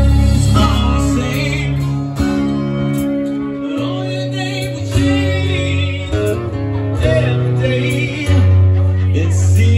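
Live rock music: electric guitar with a held, changing low bass line and singing over it.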